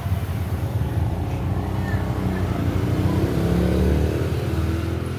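A motor vehicle engine running steadily, its pitch rising and then falling again in the middle.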